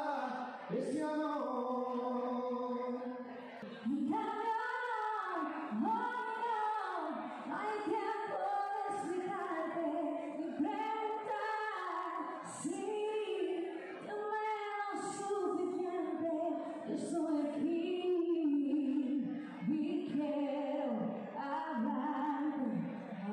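Unaccompanied singing into a handheld microphone: a man's voice at first, then a woman singing a melody in short phrases.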